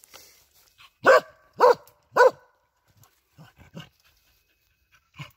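Hunting dog barking three times, loud and about half a second apart, at a raccoon dog it has found on the ground, then a few much fainter short sounds.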